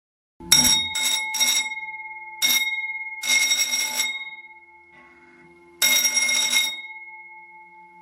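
Restored electric school bell ringing in six bursts: three short ones in quick succession about half a second in, a short one around two and a half seconds, then two longer ones. The chrome gong keeps ringing and fading between bursts.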